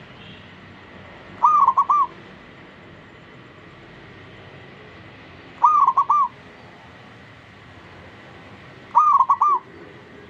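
Zebra dove (perkutut) cooing: three short phrases, each of about four quick, arched coo notes, spaced three to four seconds apart.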